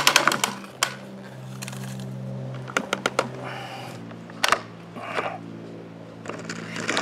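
Sharp plastic clicks and clacks from a toy front-loader garbage truck's lift arms, forks and container being worked by hand, in clusters near the start, about three seconds in and about four and a half seconds in. Under them runs a steady low drone that shifts pitch twice.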